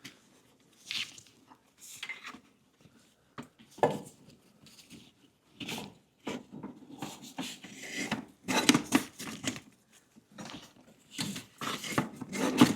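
Irregular clicks, knocks and rattles of brittle plastic canisters being worked loose and pulled out of a car's engine bay by hand, busier in the second half.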